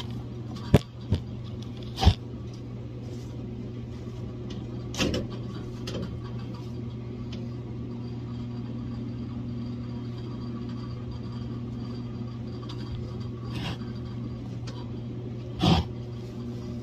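Gas furnace blower running with a steady low hum. Several sharp metal knocks and clicks, the loudest about two seconds in and near the end, as the sheet-metal furnace cover panel is pushed and bumped into place.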